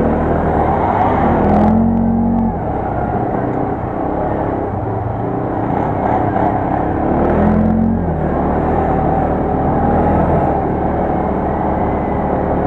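ATV (quad bike) engine running under way, its note rising and falling with the throttle, with throttle pulses about two seconds in and again about seven seconds in.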